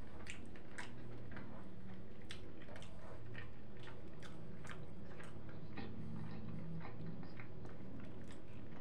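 A person chewing a mouthful of shawarma, with irregular mouth clicks and smacks a few times a second over a low steady hum.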